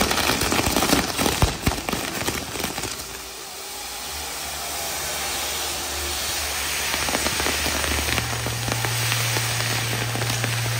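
Fireworks going off: a rapid string of sharp bangs and crackles for the first three seconds, then a steady hissing crackle with a low hum underneath.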